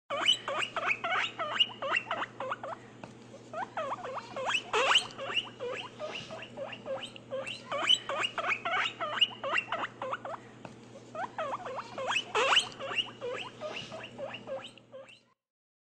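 Otters squeaking: rapid runs of short, high chirps and squeals, broken by a few brief pauses.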